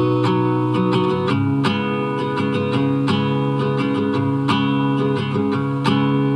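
Background music: an instrumental break of a song, led by strummed acoustic guitar with a steady rhythm.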